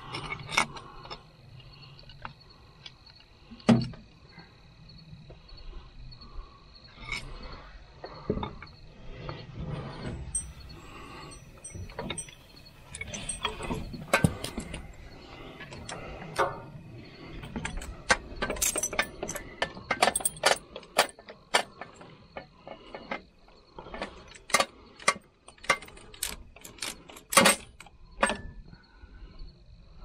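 Irregular metal clinks, taps and knocks as a John Deere 410 backhoe's diesel injection pump is handled and worked at its mount on the engine, with a few sharper knocks now and then.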